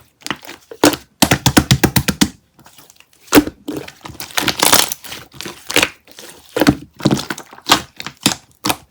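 Close, sharp clicks, taps and crinkling, like small objects being handled, with a fast run of about ten taps a second about a second in.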